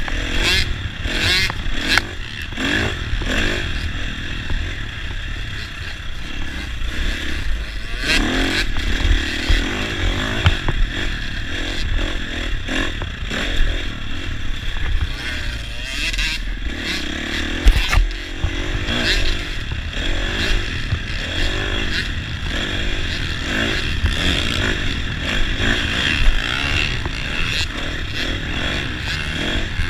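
Dirt bike engine, heard from on board the camera rider's bike, revving up and down again and again with the throttle through turns and jumps, with wind rumbling on the microphone. One loud thump a little past halfway through.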